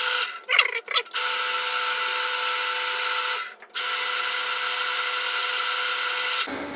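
Bench drill press running with a tapping head, cutting M6 threads in a metal flange: a steady machine whirr that stutters about half a second in, drops out briefly just after three seconds, and stops near the end.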